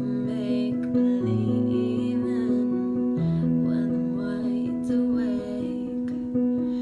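Music: a slow song on acoustic guitar, with held chords and the bass note changing about every two seconds.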